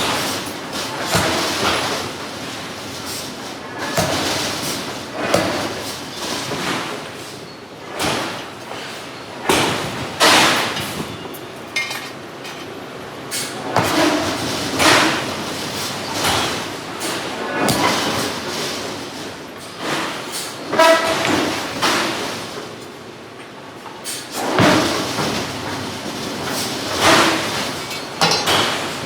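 Hydraulic forging hammer striking steel again and again, a heavy blow every one to two seconds, some blows followed by a short metallic ring.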